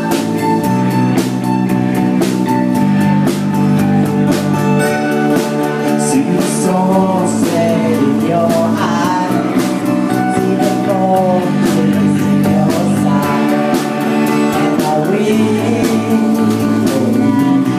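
Live rock band: a man singing and strumming an acoustic guitar over a drum kit, with steady drum hits throughout.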